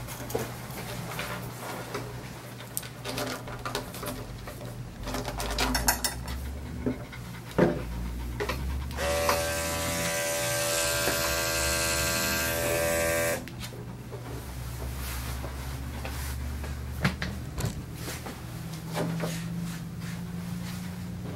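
Electric dog grooming clippers running with a steady buzz, much louder for about four seconds near the middle, where it starts and stops sharply, among scattered clicks of handling.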